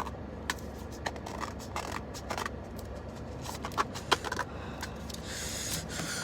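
A squishy toy's packaging being handled and opened by hand: a run of irregular sharp crinkles and clicks, with a longer rustle near the end.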